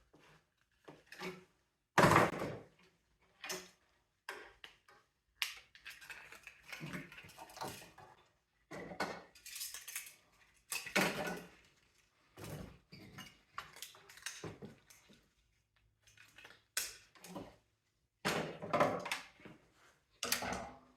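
Irregular knocks and clatter of a mini split unit's plastic and metal parts being handled and pulled apart by hand, with one loud knock about two seconds in.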